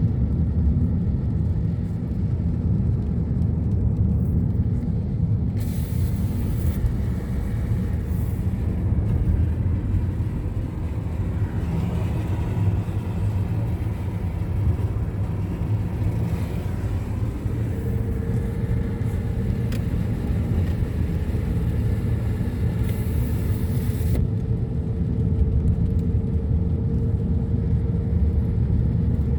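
Steady low engine and road rumble of a car driving on a highway, heard from inside the vehicle. A broad hiss joins in from about five seconds in and drops away again near the end.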